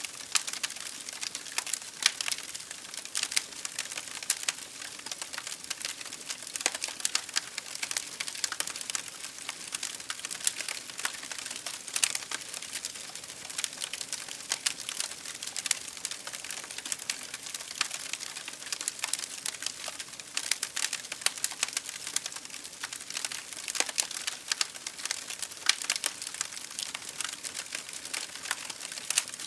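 Campfire crackling: burning firewood giving off a continuous stream of irregular small pops and snaps, several a second, over a soft hiss, with a louder snap now and then.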